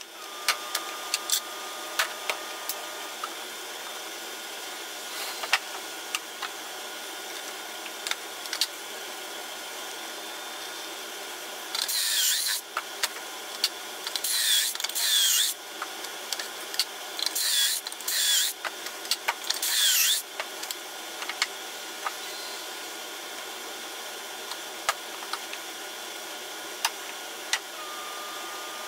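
Cordless drill boring pocket holes through a Kreg pocket-hole jig into pine: about six short bursts of drilling in the middle, each ending in a falling whine. Scattered clicks and knocks of wood and tools being handled come before and after.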